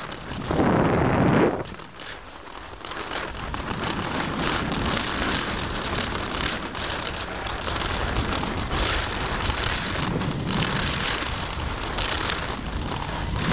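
Wind buffeting the camera microphone, with a strong low gust about a second in, over a steady crackling hiss of skis running across crusted snow and ice.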